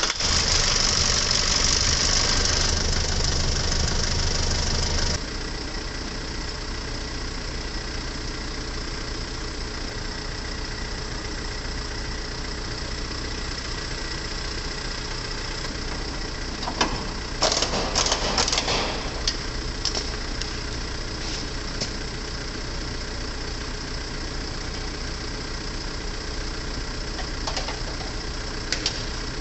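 Mitsubishi Fuso Canter truck's diesel engine idling, left running after a radiator replacement to bleed air from the cooling system. It runs louder for about the first five seconds, then settles to a steady idle; a short burst of clicks and clatter comes about 17 to 19 seconds in.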